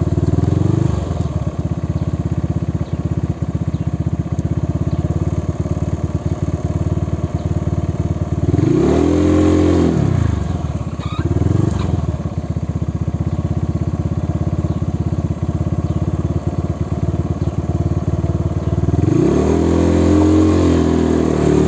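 Motorcycle engine running while ridden, its pitch rising and falling as the throttle is opened and closed: a long rev about a third of the way in, a short one soon after, and another rising near the end.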